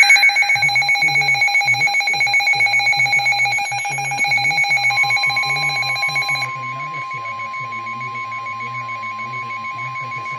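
Electronic emergency-alert warning tones: a loud, rapidly pulsing multi-tone alarm trilling about eight to ten times a second. About five seconds in a steady single-pitch alert tone joins it, and the pulsing alarm stops a second and a half later, leaving the steady tone.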